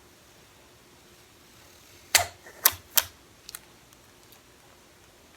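Three sharp clicks about half a second apart, followed by a couple of faint ticks, from small hard objects being handled.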